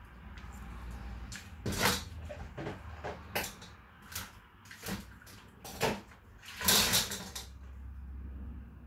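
Kitchen handling sounds: a string of irregular knocks and clunks, about half a dozen, with a longer rustling scrape about seven seconds in.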